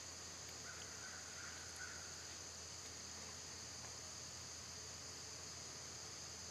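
Steady high-pitched chorus of field insects trilling without a break, with a brief faint call from a distant bird about a second in.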